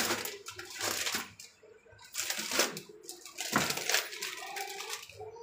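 Clear plastic saree packaging crinkling and rustling in several bursts as a packed saree is lifted out of its box and handled.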